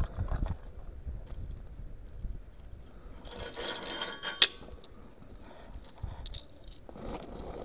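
Things being handled: a jangling rattle and rustle, with one sharp click about four and a half seconds in.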